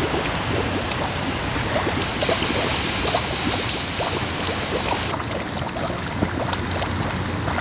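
Large drops of rainwater falling into a puddle, each landing as a short watery plink, several a second at an uneven pace, over a steady hiss of rain and wet street.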